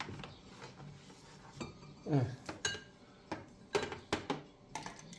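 Scattered light clicks, clinks and knocks of handling as an air fryer's power cord is uncoiled and its plug is pushed into a wall socket.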